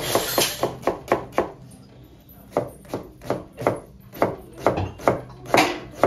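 Knife chopping on a cutting board in quick regular strokes. There is a brief pause about one and a half seconds in, then the chopping carries on at about three strokes a second.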